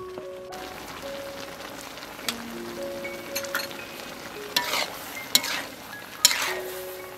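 Shrimp and sponge gourd sizzling in a wok: a steady frying hiss, with a metal spatula scraping and tossing the food a few times in the second half.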